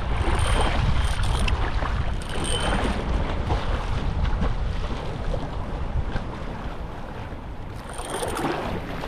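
Wind buffeting the microphone in low rumbles, over the splash and lap of sea water around a kayak being paddled.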